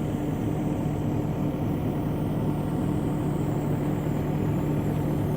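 Heavy diesel engine running at a steady speed, an even, unchanging drone.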